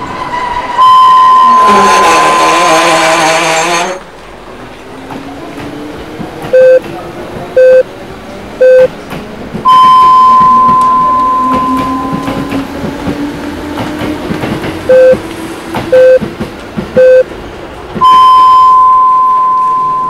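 A repeating electronic beep sequence: three short low beeps about a second apart, then one long higher tone, cycling about every nine seconds over a rumbling background with a slow rising hum. A loud harsh noise sounds with the first long tone.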